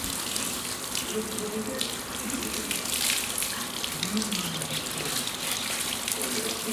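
Water running and splashing steadily, as from a tap or hose.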